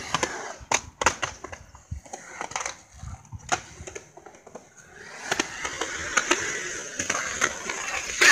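Skateboard on concrete: scattered sharp clacks and knocks of the board, then from about five seconds in the steady rolling rush of the wheels over the concrete, with more clacks over it.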